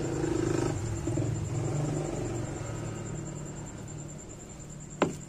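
Wok of noodle broth bubbling on the stove with a low, steady rumble, a little louder in the first second as an egg is slid in from a bowl. A sharp click sounds near the end.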